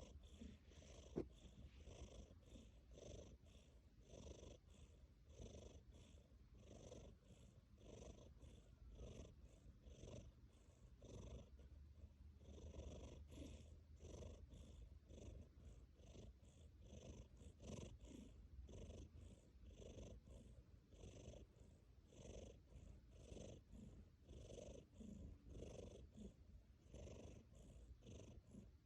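A tabby cat purring faintly in an even, repeating pulse. A single sharp click comes about a second in.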